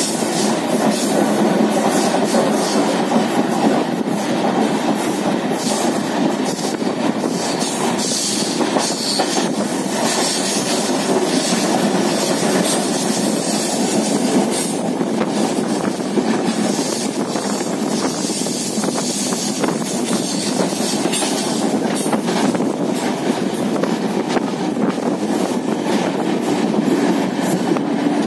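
Passenger express train coach running steadily on the track, heard from its open door: a continuous rumble of wheels on rails with irregular clicks over the track and a rush of air past the doorway.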